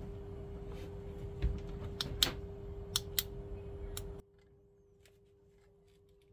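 Handling noise and about half a dozen sharp clicks as a small panel-mount power switch is handled, over a steady low hum. The noise and clicks stop abruptly about four seconds in, leaving a quiet hum and a few faint ticks.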